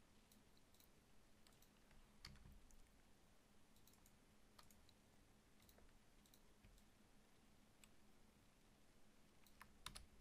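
Faint computer mouse clicks, scattered and irregular, about fifteen in ten seconds, with a few sharper ones near the end, in a quiet room.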